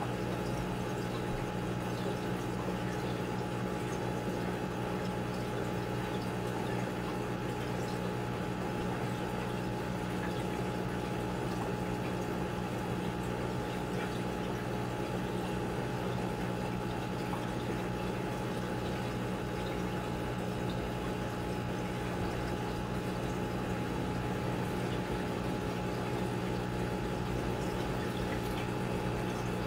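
Aquarium pump running with a steady hum, and water flowing and bubbling in the tank.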